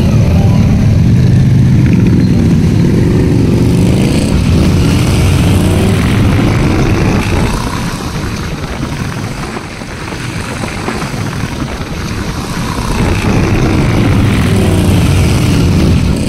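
A column of motorcycles, mostly Harley-Davidson V-twin cruisers, riding past one after another with a loud, deep engine rumble. The rumble eases in the middle and builds again as more bikes go by near the end.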